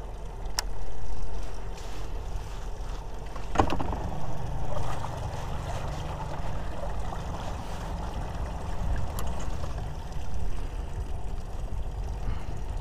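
Steady low hum and light water noise of a fishing boat sitting on calm water, with a few sharp clicks, the loudest about three and a half seconds in.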